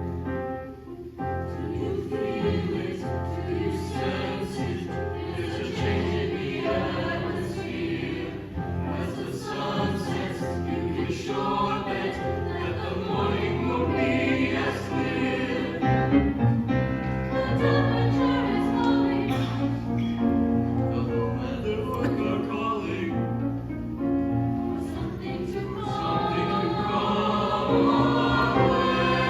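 Mixed choir singing together in harmony, with sustained and shifting chords.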